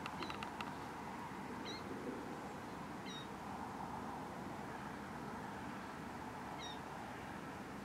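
Outdoor ambience: a steady hiss with a few short, high chirps spread through, and a quick run of clicks at the very start.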